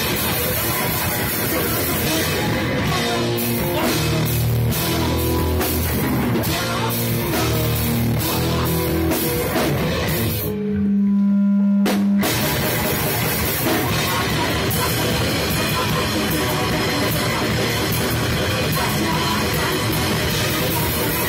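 Live rock band with amplified bass and electric guitar and a drum kit, playing loud. About ten seconds in the band stops on one held low note for a second and a half, then crashes back in together.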